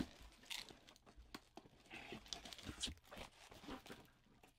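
Faint, scattered rustling, scraping and soft clicks as a box is opened by hand.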